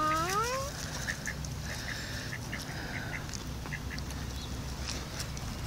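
Mallard ducks calling with short, repeated quacks, and a brief rising call right at the start.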